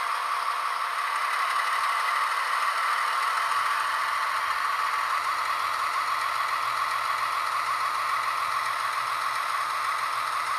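ESU LokSound V4.0 sound decoder in a Märklin H0 V160 model locomotive playing a steady diesel-engine sound through its small speaker, with a faint low motor hum joining about three and a half seconds in as the bare chassis runs on the track. It is the first test run without the short circuit in the pickup-shoe bogie.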